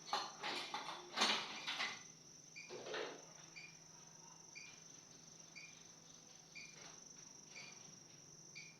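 A cricket chirping steadily, with short chirps about once a second over a constant high trill. A few knocks and scrapes in the first three seconds come from the dough roll being cut into pieces for chapati balls.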